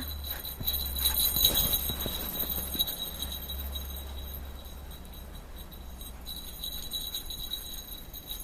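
Metal tags on a husky's collar jingling as the dog moves, ringing brightest in the first two seconds and again near the end, over the low rumble of wind on the microphone.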